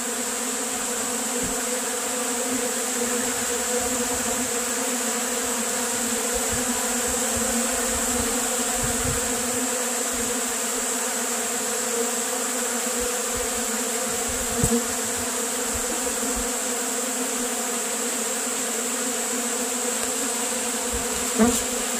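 Dense, steady buzzing of a large number of honey bees flying about in a robbing frenzy over exposed combs of crystallized honey. Two brief knocks come in, one about two-thirds of the way through and one near the end.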